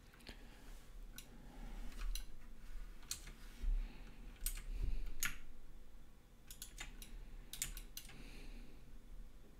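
Computer keyboard keys and mouse buttons clicking in irregular clusters as Blender shortcuts are entered, with a couple of dull knocks a few seconds in.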